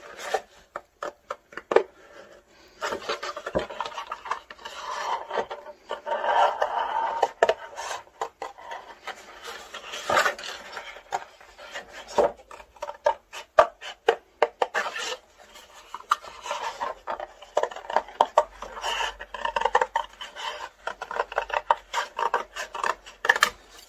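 Scissors cutting through black card: repeated snips and the rasp of the blades through the card, with the rustle of the sheet as it is turned.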